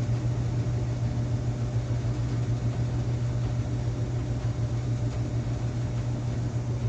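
Household furnace running with a steady low hum and a fast, uneven flutter, the sound of something loose rattling inside it.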